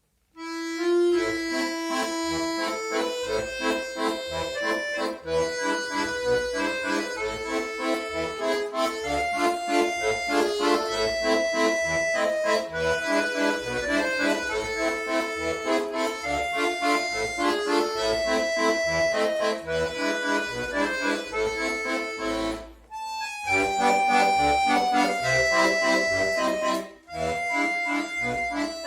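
Solo accordion playing a tune, melody over a pulsing bass accompaniment. It starts out of silence about half a second in, with short breaks about 23 and 27 seconds in.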